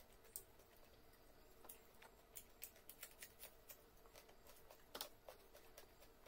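Faint sounds of eating by hand: fingers mixing rice on a plate and mouth sounds of chewing, a scatter of small clicks and smacks, the loudest about five seconds in.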